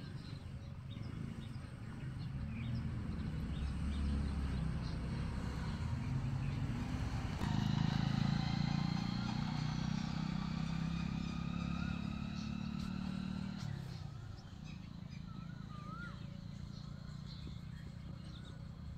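Motor vehicles passing on the road: one swells by around four seconds in, then a louder pass rumbles from about seven and a half seconds and fades out by fourteen seconds. A few bird chirps follow near the end.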